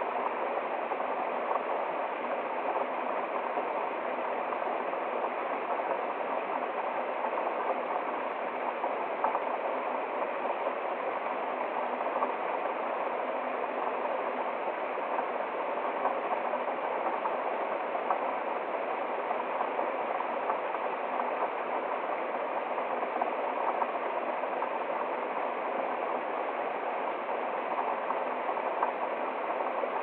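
A small waterfall and stream running steadily over rocks: an even, unbroken rush of water.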